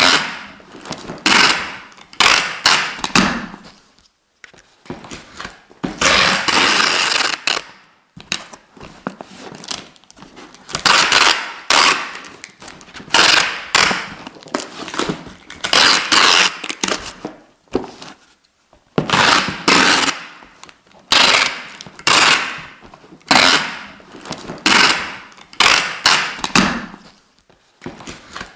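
Adhesive tape being pulled off its roll again and again, each pull a rapid rattling rip lasting about a second, with short gaps between pulls.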